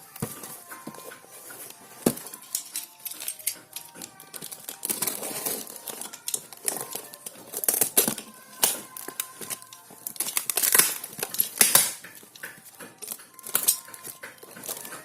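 Plastic packaging crinkling and rustling, with tearing, as a parcel is unwrapped by hand; louder, irregular crackles come in bunches.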